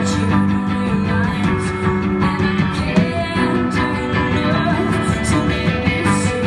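Live rock band playing: electric guitar, bass guitar, drums and keyboard, with a singer's voice over them.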